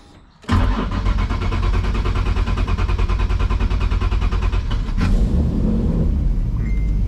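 Nissan 350Z's VQ35HR V6 being started: about half a second in, the starter cranks it with a fast, even pulsing for several seconds, a long and laboured crank, then about five seconds in it catches and settles into a rattly idle. The engine is solid-mounted, and its exhaust is leaking at the gaskets with the muffler suspected of being clogged by a mouse nest.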